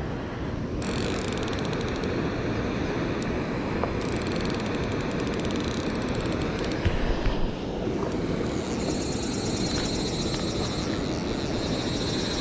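Steady rushing background noise with two spells of fast, fine clicking. The clicking is typical of a fly reel's drag as a hooked paddlefish pulls line.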